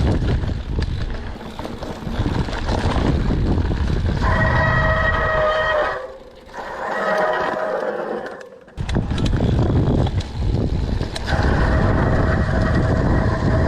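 Front brakes squealing in a steady, high-pitched tone while braking, over wind and rolling noise. The squeal sets in about four seconds in, breaks off twice, and holds again through the last few seconds.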